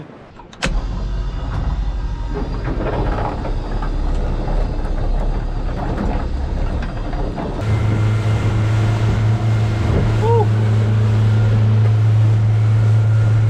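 Boat motor running under way, with a low rumble and the rush of wind and water. About halfway through, a strong, steady engine hum comes to the fore.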